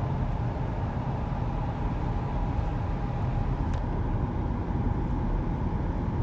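Inside the cabin of a 2005 BMW 535d (E61) at cruising speed: a steady low rumble with a constant mid-pitched drone over it. It is the strange road noise that stays exactly the same in neutral, which the owner suspects may just be tyres.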